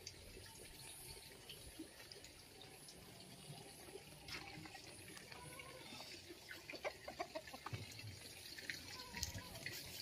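Faint outdoor sounds: soft footsteps on a dirt path, more frequent in the second half, with a chicken clucking a few times near the end.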